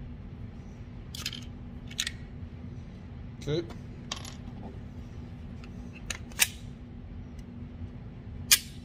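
Metallic clicks and clinks of a Glock 43X pistol being handled to clear a double feed, with its slide locked back. About seven short, sharp clicks come at irregular intervals, the loudest near the end, over a steady low hum.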